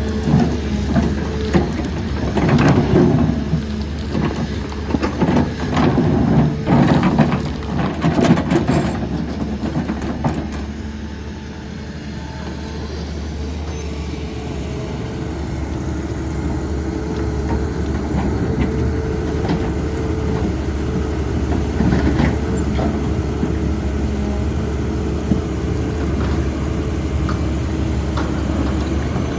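Hydraulic excavator's diesel engine running steadily under load, with rough clattering and knocking of the bucket cutting through muck and rock for the first ten seconds or so. The engine then runs on with less clatter, slowly growing louder.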